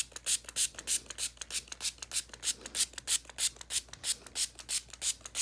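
A grooming brush raked quickly and repeatedly through a timberwolf's thick shedding coat, pulling out loose winter undercoat. It makes dry, scratchy strokes, about three or four a second, in an even rhythm.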